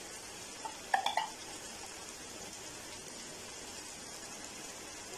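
Mutton liver pieces sizzling and bubbling in their own released juices in a frying pan. About a second in, a spoon clinks against the pan a few times in quick succession.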